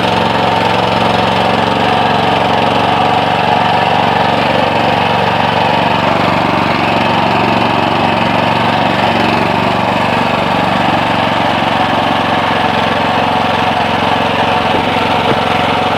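Motor Sich walk-behind tractor's small engine running steadily under load while pulling a loaded trailer, holding an even speed.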